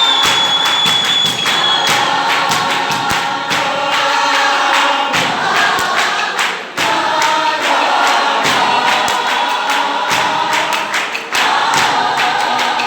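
A group of voices singing together in harmony, over a dense run of sharp percussive hits. A high, steady whistle is held for about two seconds at the start.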